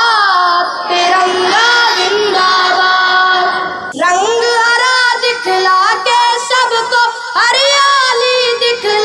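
A child's voice singing a patriotic song melody in long, sliding held notes with no clear words, with a short break about four seconds in.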